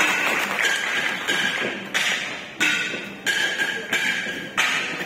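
Kalinga gong music: flat bronze gongs (gangsa) struck in a steady beat, about three strikes every two seconds, each one ringing on and fading before the next. Applause is fading out as the strikes begin.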